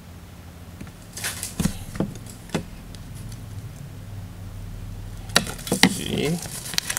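Handling noise from a graphite spinning rod: several light knocks as it is handled, then two sharper knocks a little past five seconds as it is set down on the table. Cloth rustling follows near the end as the fabric rod sleeve is handled, over a steady low room hum.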